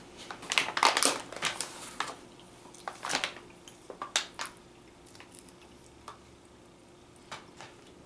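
Plastic resealable beef-jerky bag crinkling as pieces of jerky are pulled out. The crackles come thick in the first couple of seconds, a few more around three to four seconds in, then thin out to occasional faint ticks.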